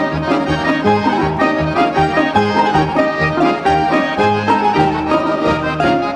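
Lively Russian folk dance music from an instrumental ensemble, with a quick tune over a bass that steps on every beat.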